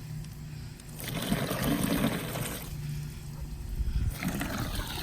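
Water trickling and pouring into a small backyard pool as it is filled, coming and going unevenly with two louder spells.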